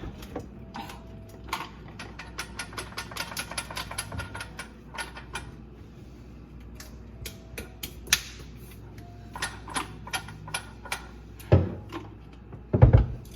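Loose aquarium gravel rattling and clicking inside a removed garbage disposal unit as it is turned upside down and shaken to clear the clog. A quick run of clicks comes about two seconds in, scattered rattles follow, and two loud knocks come near the end.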